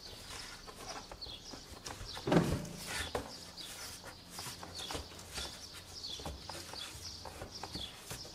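Small birds chirping again and again in short falling notes, over scattered knocks and rustles of corrugated cardboard being bent over a table edge. About two seconds in comes one louder, brief low-pitched sound.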